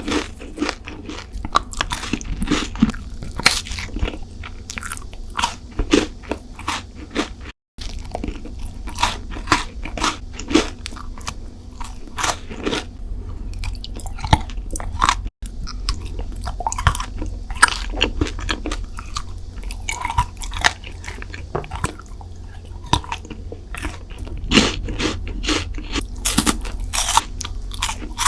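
Close-miked eating of crunchy sweets: repeated crisp bites and crackling crunches with wetter chewing between them. The sound cuts out completely for an instant twice.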